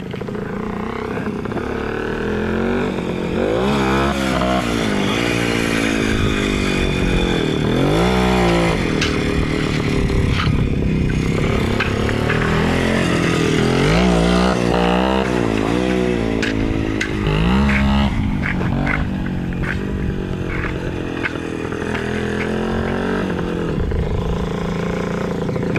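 WSK 125 motorcycle's single-cylinder two-stroke engine revving up and down as it is ridden around close by, its pitch rising and falling and swelling louder about four times as it passes.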